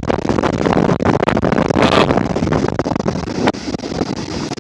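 Strong wind buffeting the microphone in irregular gusts, over the low rush of heavy surf breaking on the beach.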